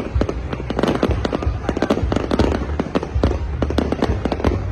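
Aerial fireworks exploding in a dense, continuous barrage: many sharp cracks and bangs overlapping, over a deep rumble.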